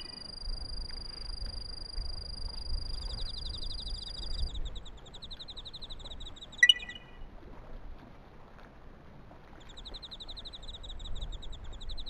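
Night insects trilling: a steady high trill for the first few seconds, then a pulsing, chirring trill that stops for a few seconds past the middle and starts again, over a low rumble. A single short, sharp chirp a little past the middle is the loudest sound.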